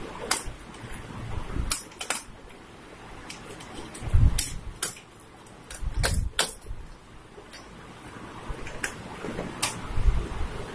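Scattered plastic clicks, taps and knocks from hands handling a plastic desk lamp head while fitting an LED bulb into its socket, with a couple of heavier dull thumps near the middle.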